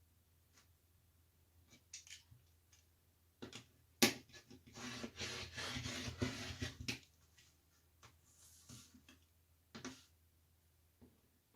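Quilting fabric being handled on a work surface: scattered light clicks, a sharp knock about four seconds in, then about three seconds of rustling, and a few more clicks near the end.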